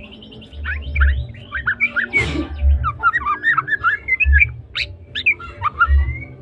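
White-rumped shama in full song: a fast, varied run of whistles and chattering notes. Low thuds come about once a second beneath the song.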